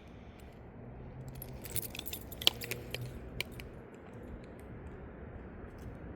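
Light metallic jingling and clinking: a cluster of small clinks about two seconds in, the loudest near the middle, over a faint low hum.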